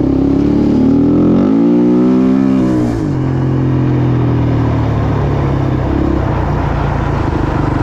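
Small dirt bike's single-cylinder engine revving: its note climbs in pitch, drops sharply about three seconds in, then runs on at a steadier, lower note.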